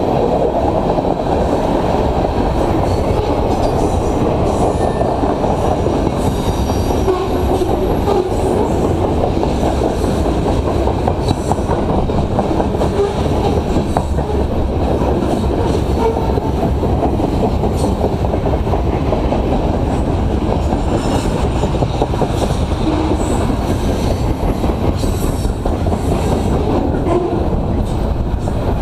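Freight train's cars rolling past at close range: a steady, loud rumble and rattle of steel wheels on the rails that does not let up.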